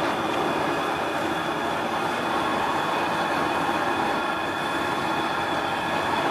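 Propane turkey-fryer burner running under a pot of water: a steady, even rush of flame noise.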